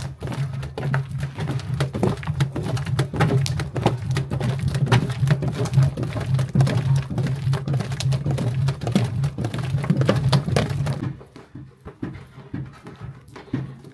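A long wooden paddle beating a thick halva mixture of sugar syrup and egg in a large metal pot, with rapid knocking and scraping of wood against the pot over a steady low hum. It drops noticeably in loudness about eleven seconds in.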